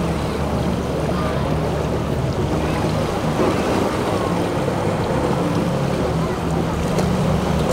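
Boat engine running steadily over the rush of waves and wind.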